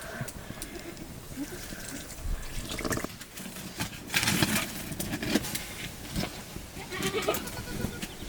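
Goats bleating now and then among scattered knocks and clatter.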